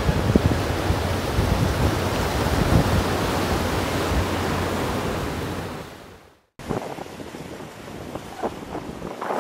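Wind buffeting the microphone over sea surf, a steady rushing noise. It fades out about six seconds in, a moment of silence follows, then quieter wind noise resumes with a few brief knocks.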